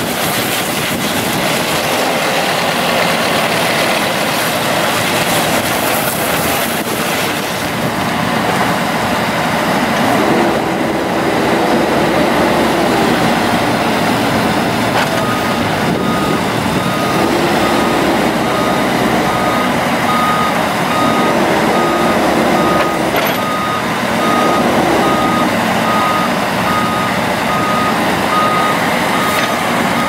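Case SV300 skid steer's 3.2-litre four-cylinder turbo diesel running, its note rising and falling several times as the machine is worked. From about halfway through, its reversing alarm beeps steadily, roughly one beep a second.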